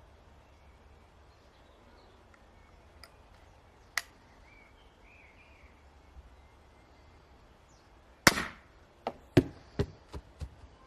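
Crossbow shooting: one sharp crack about four seconds in, then a loud crack near the end followed by a quick run of five fainter knocks that die away. Faint bird chirps can be heard in the background.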